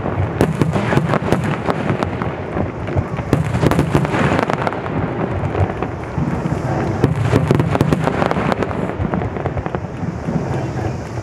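Underwater fireworks (suichū hanabi) bursting at the water's surface in a dense finale barrage: many booms and sharp cracks a second, overlapping into a continuous low rumble.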